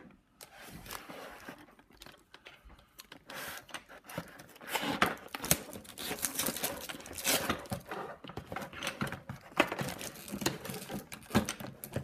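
Cardboard toy box and its plastic wrapping being handled: irregular rustling, crinkling and small knocks, busier and louder from about halfway in.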